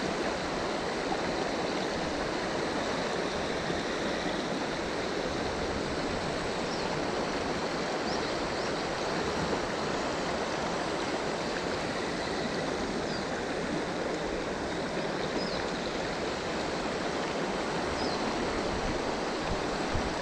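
Steady rushing of a river's flowing current in the main channel.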